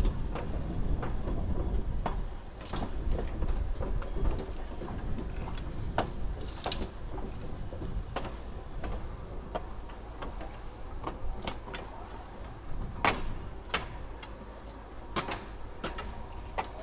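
Slow-moving work train rolling over old jointed track: a low rumble with irregular sharp clicks and knocks as the wheels cross the rail joints. The rumble is heavier in the first few seconds, then eases.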